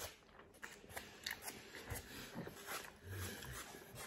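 Faint close-up chewing of pizza topped with fries: soft, irregular wet mouth clicks and light crunches.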